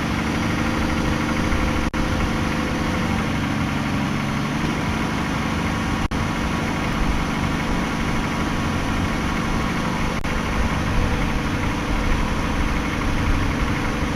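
Jeep Grand Cherokee ZJ's 4.0L inline-six idling steadily on a freshly installed serpentine belt, with a little bit of squeal from the belt still there.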